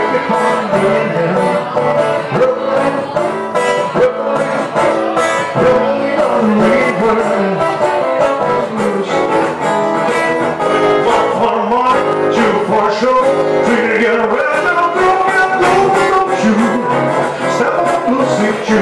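Live acoustic guitar playing with a male singer singing into a microphone.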